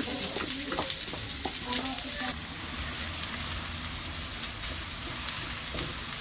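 Chopped onions sizzling in hot oil on a tawa as they are tipped in and stirred with a wooden spatula. The sizzle is loudest, with scraping clicks, for about the first two seconds as the onions go in, then settles to a steadier, quieter sizzle.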